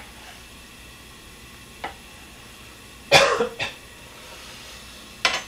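Tofu frying in oil in a pan, a steady low sizzle. Two sharp clicks, one at the start and a lighter one about two seconds in, and about three seconds in a loud short burst.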